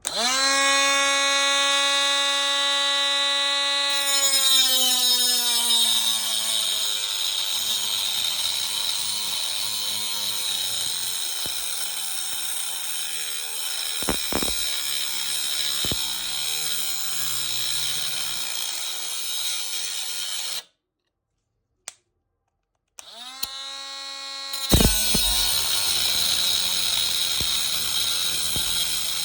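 Mini 12-volt cordless angle grinder spinning up to a high whine, then cutting into a thick metal tube. The pitch sags as the small motor slows under load and the sound turns into a harsh grinding scrape. About two-thirds through it cuts out for a couple of seconds, then spins up again and carries on cutting; the tube is heavy work for so small a disc.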